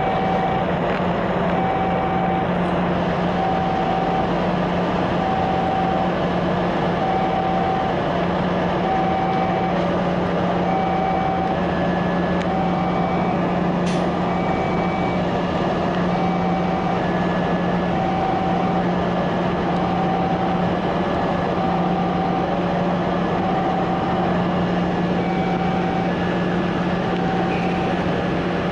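A diesel-electric locomotive's engine running steadily, with a level-crossing alarm beeping evenly about once a second over it.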